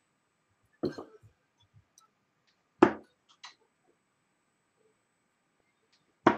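Three darts striking a dartboard one after another, about two to three seconds apart: three short, sharp hits, the middle one the loudest.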